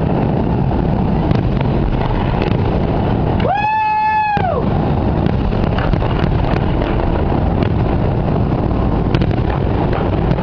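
Fireworks display under a steady loud rumble, with a few faint pops from bursting aerial shells. About three and a half seconds in, a horn-like tone lasts about a second, bending up at its start and down at its end.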